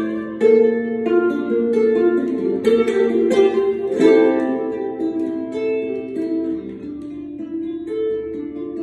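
Solo ukulele, plucked and strummed in a stairwell: a melody picked over chords, with several fuller strums in the first half. It turns softer and sparser after about five seconds.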